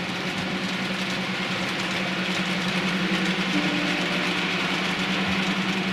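Model railway locomotive's DCC sound decoder playing a steady engine-idling sound: a constant low hum under an even hiss.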